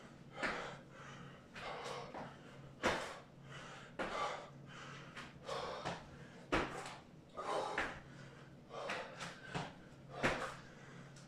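Burpees: feet and hands landing with a thump every one to three seconds on a thin exercise mat over a tiled floor, with heavy breathing between the landings.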